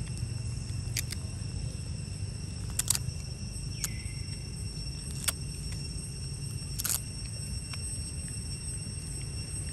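Outdoor ambience: a steady low rumble under a steady high-pitched whine, broken by a few sharp clicks or crackles about one, three, five and seven seconds in.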